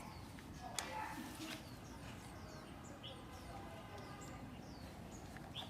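Faint small-bird chirps, many short quick downward notes scattered throughout, with one sharp click about a second in.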